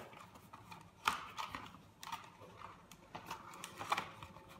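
Unpacking handling noise: a foam insert and a clear plastic blister tray lifted out of a cardboard box, making a handful of short knocks and scrapes, the sharpest about a second in.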